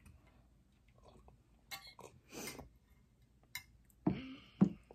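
Quiet eating sounds: chewing and a few light clicks of a fork and shell on a plate, with a short throaty mouth sound about four seconds in.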